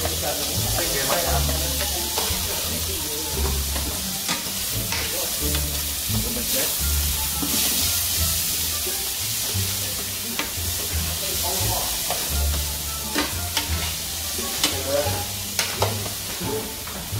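Stir-fried vegetables and meat sizzling in a frying pan on an induction cooktop, with a steady hiss of frying. A utensil scrapes and clicks against the pan now and then as the food is stirred.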